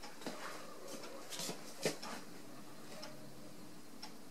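A few light clicks and knocks, the sharpest a little under two seconds in, with fainter ticks later over a faint steady hum.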